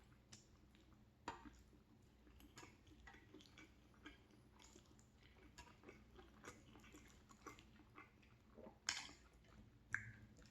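A person chewing a mouthful of macaroni and cheese close to the microphone: soft, irregular wet clicks and smacks, with a few sharper clicks, two of them near the end.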